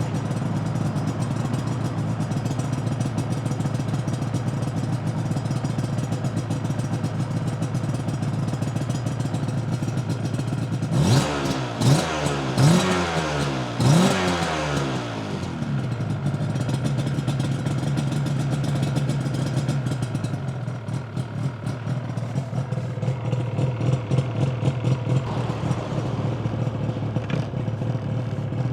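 Yamaha TZR250 1KT's two-stroke parallel-twin engine idling. A little before halfway it takes three quick throttle blips, each rev rising and falling away, before settling back to idle.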